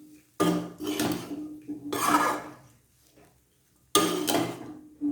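A utensil stirring and scraping through crumbled pearl millet (kambu) flour and onion mixture in a pan, in a few separate strokes with a short pause in the middle.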